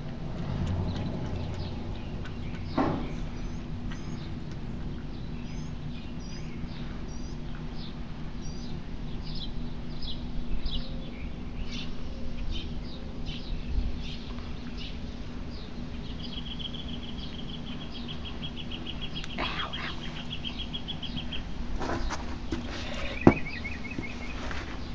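Small songbirds chirping over and over, then a long, rapid trill lasting several seconds and a shorter trill near the end, over a steady low hum. There is a single sharp click near the end.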